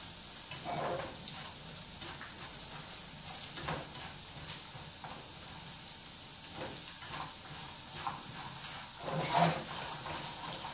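Garlic frying in a little oil in a frying pan: a steady sizzle, with a utensil stirring and scraping it and knocking on the pan now and then, most strongly about nine seconds in.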